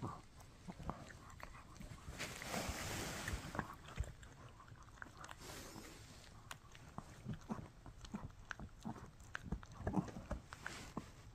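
Shih Tzu gnawing on a bully stick: irregular small clicks and crunches of teeth working the chew. A brief rustle comes about two seconds in.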